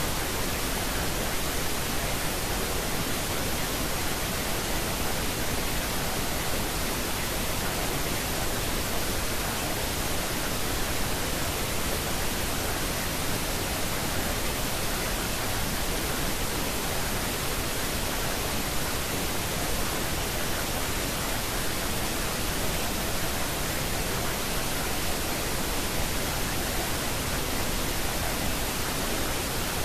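Steady, even pink-noise hiss with no breaks or changes: the masking noise of a subliminal affirmation recording.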